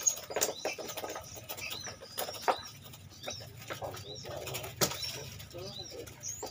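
Knife knocking and scraping on a wooden chopping block as papuyu (climbing perch) are cleaned: irregular sharp strikes a few times a second.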